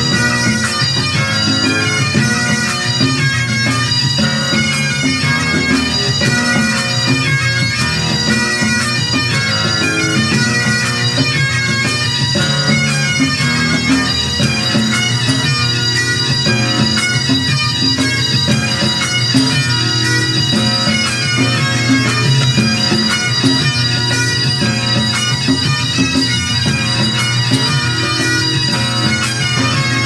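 Pipe band playing: Great Highland bagpipes sounding a melody over their steady drones, driven by the band's tenor and bass drums with rapid drum strokes throughout.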